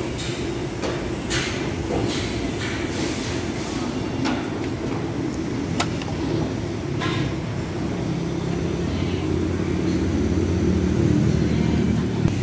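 Steady low rumble of heavy machinery as steel WF beams are hoisted off a truck by a tower crane. A few sharp metallic clinks come in the first half, and the rumble grows louder in the second half.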